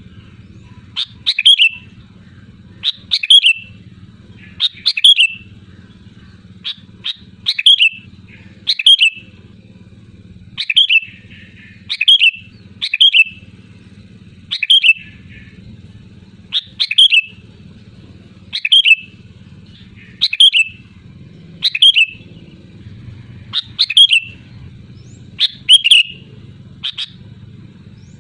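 Sooty-headed bulbul (kutilang) calling loudly, giving short chirping phrases over and over, about one every one to two seconds.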